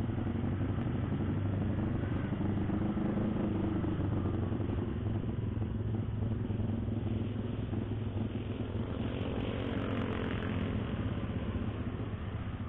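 Motorcycle engine running on the move, heard from the riding bike itself, its note rising and falling a little through the bends over steady riding noise.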